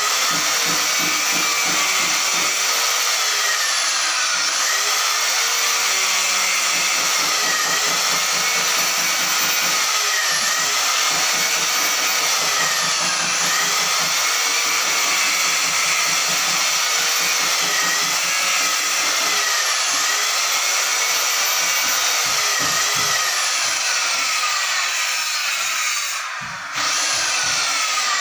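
Electric angle grinder cutting ceramic tile: a steady high whine with a grinding hiss, the motor's pitch dipping and recovering every two to three seconds as the blade bites into the tile. It stops briefly near the end, then starts up again.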